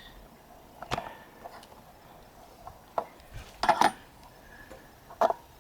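A few scattered sharp clicks and knocks with a metallic clink to them, the loudest a quick pair about three and a half seconds in; no engine is running.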